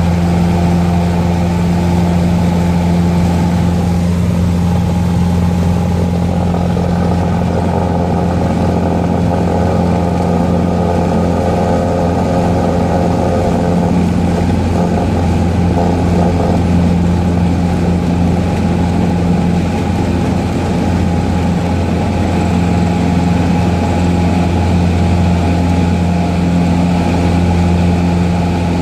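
Cessna light aircraft's piston engine and propeller running steadily at takeoff power through the ground roll and climb-out, heard from inside the cabin.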